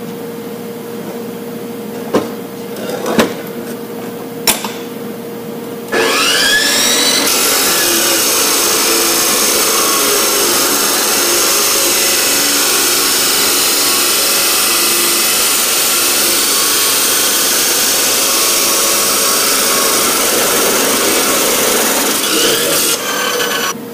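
A few sharp metal knocks, then an abrasive chop saw spins up with a rising whine about six seconds in and grinds steadily through 1-inch steel tubing, winding down just before the end.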